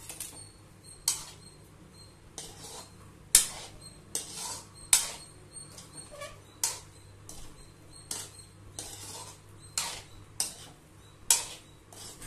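Metal spoon scraping and clinking against a metal kadai as potato pieces in masala are stirred and fried, in short irregular strokes about once a second.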